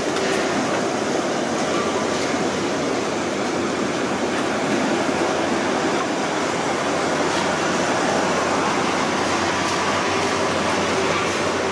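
Steady machinery noise from a crab boat's engine and deck gear: an even, unbroken hum and hiss with a faint steady tone running through it.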